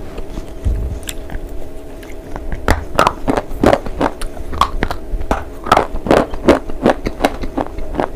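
A slate bar being bitten and chewed with loud, sharp crunches, a few light clicks at first and then a dense run of crackly crunches, several a second, from a little under three seconds in.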